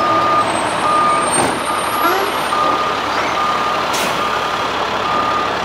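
Large forklift's backup alarm beeping over and over in short even tones while its engine runs under load, carrying a heavy crate. A short knock is heard about four seconds in.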